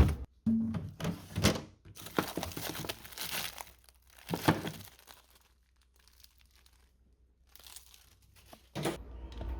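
Plastic packaging crinkling and rustling as it is handled, with a few sharp knocks in between. It goes quiet for a couple of seconds in the middle.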